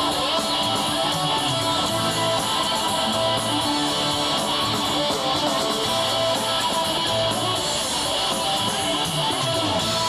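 Live rock band playing, led by strummed electric guitar over a bass line, steady and loud.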